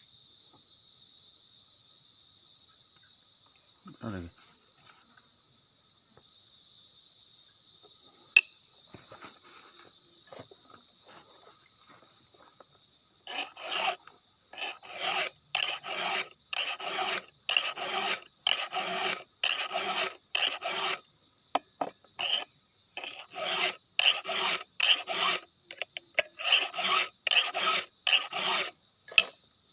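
Hand file sharpening the cutters of a chainsaw chain: faint scattered strokes at first, then from about halfway a regular run of scraping file strokes, about two a second. A steady high insect whine lies underneath.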